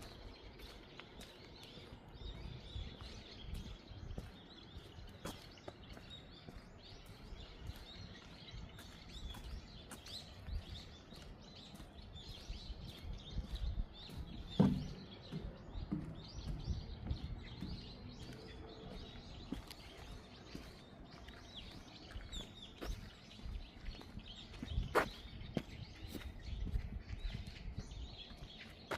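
Small birds chirping and calling on and off over a low outdoor rumble, with scattered faint clicks and two louder knocks, one about halfway through and one near the end.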